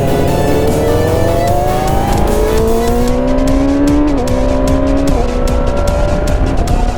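Yamaha R6's inline-four engine with its stock exhaust pulling hard under acceleration. Its pitch climbs steadily, drops at quick upshifts about four and five seconds in, and drops once more near the end.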